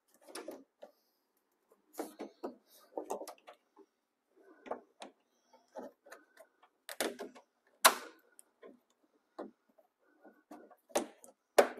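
Irregular clicks and knocks of hand tools on a plastic push-in Christmas-tree retainer clip in a pickup bedliner: side cutters are wedged under the clip as a pry fork and worked with a second tool to pop it out. A few sharper, louder knocks come in the second half.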